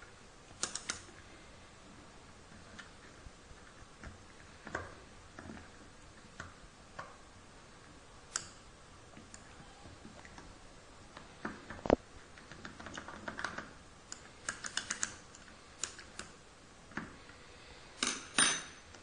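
A thin stirring rod clicking and tapping irregularly against the side of a small glass beaker while wet cardboard is stirred in salt water, with a quick run of taps and a louder clatter near the end.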